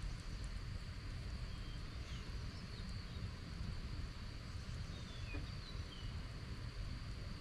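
Dusk outdoor ambience: a steady high-pitched insect drone with a few short bird chirps scattered through, over a constant low rumble.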